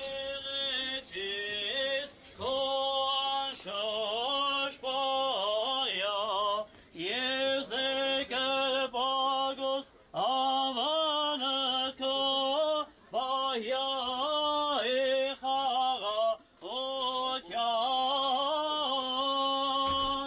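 A solo male voice singing an unaccompanied, chant-like melody in held, sliding phrases, with short breaths between them.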